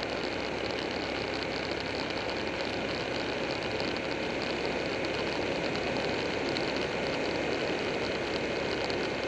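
Buell 1125R's V-twin engine running at a steady cruising speed, mixed with a constant rush of wind and road noise.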